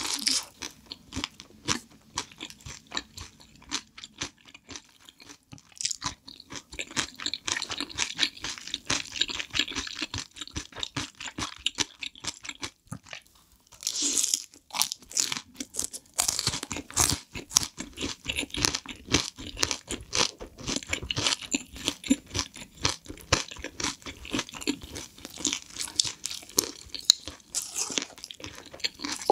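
Close-miked chewing and crunching of fried dumplings and jjajang noodles, a steady run of crisp crunches and wet chewing. It pauses briefly about two-thirds of the way through, then comes back with louder crunching.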